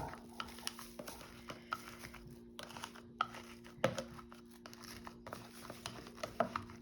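Gloved hands pressing and smoothing sticky marshmallow cereal mixture in a baking pan: faint, irregular crinkling of the plastic gloves and light taps, over a steady low hum.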